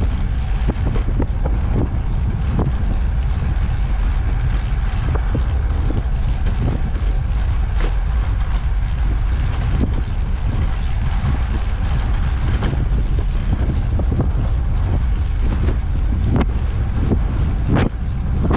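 Wind buffeting the microphone and rolling tyre noise from a moving ICE Sprint X 26 recumbent trike on an asphalt path, a steady loud rumble. Scattered small clicks and rattles run throughout.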